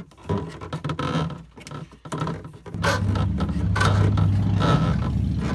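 Corrugated plastic waste pipe scraping and rubbing as it is fed down through a hole in the floor, in uneven strokes. About two and a half seconds in, a loud steady low rumble starts under the scraping as the pipe slides out below.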